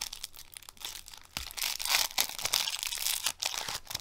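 Plastic wrapping crinkling and tearing as it is picked open by hand, with a run of small crackles that grows busier about halfway through.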